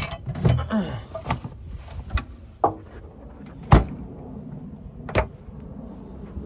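Four separate sharp clunks of a 1996 Rover Mini's body hardware being worked, the loudest a little past the middle: its door and bonnet catches being opened.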